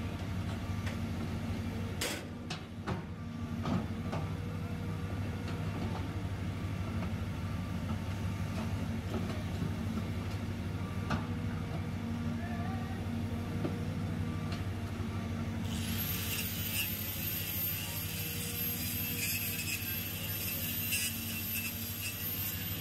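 CAT 320C hydraulic excavator's diesel engine running steadily while the boom and bucket work, with a few knocks about two seconds in. Later, a high steady hiss joins in.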